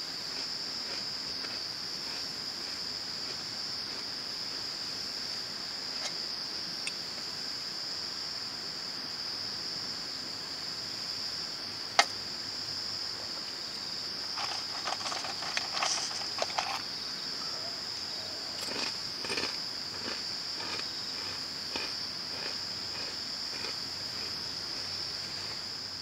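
Steady, high-pitched chorus of insects outdoors, with a sharp click about halfway through and a few seconds of light tapping and rattling after it.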